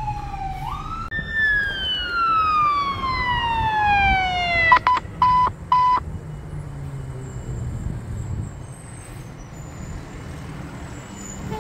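Emergency vehicle siren: a wail falling and rising again, then a long siren tone sliding steadily down in pitch over about three and a half seconds, followed by three short blasts at one steady pitch. After that a quieter low engine rumble.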